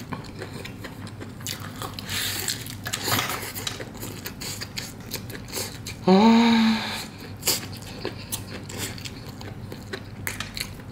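Close-up biting and chewing of crispy fried chicken, with many sharp crunches and crackles of the fried skin. About six seconds in, a short, loud hummed vocal sound from the eater.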